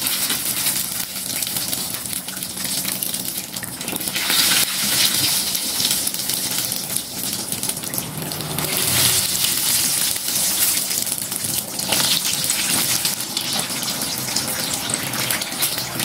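Vegetable fritters in wonton-wrapper baskets deep-frying in hot oil: a steady sizzling with fine crackling, swelling louder a few times.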